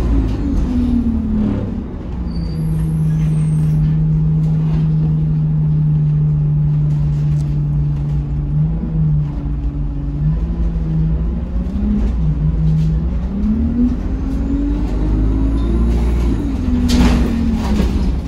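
Bus engine heard from inside the passenger saloon. The engine note falls as the bus slows, holds a steady note for several seconds, then rises again as it pulls away. A short air-brake hiss comes near the end.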